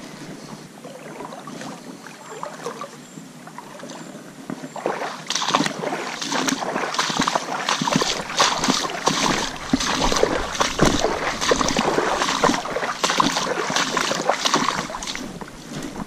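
Water splashing and sloshing, starting about five seconds in and going on in a quick, irregular run of splashes.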